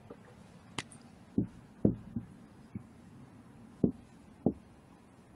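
A dry-erase marker writing on a whiteboard: one sharp click about a second in, then a series of about six short, soft knocks as the pen strokes and taps against the board.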